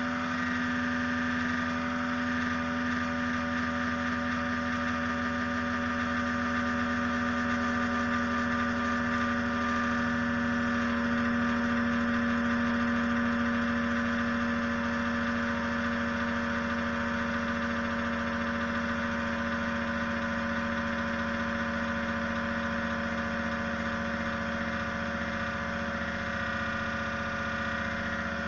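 Ig-Max 1607 500W computer power supply running: a steady whirring drone with a low hum and a higher whine, holding constant throughout.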